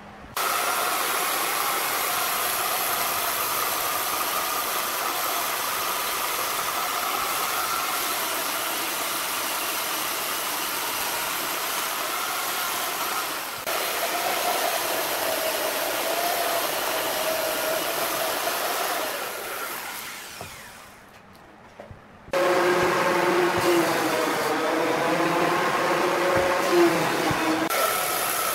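Electric chainsaw running and cutting into a charred tree stump, a steady whine with chain noise. About two-thirds of the way through it winds down and stops briefly, then starts up again louder, its pitch wavering as the bar is pushed through the wood.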